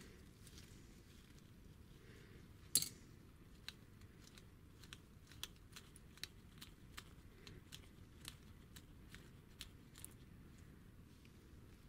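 Small parts and tools being handled on a workbench: one sharper click or knock about three seconds in, then a run of light, irregular clicks and taps.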